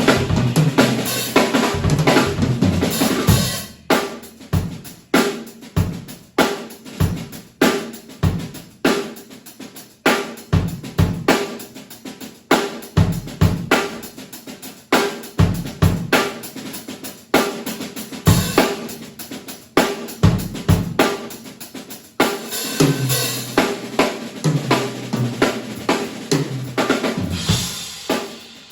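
Drum kit played solo: kick, snare, hi-hat and cymbals. Dense fills on the low drums at the start and again from about 23 seconds in, with a sparser beat in between.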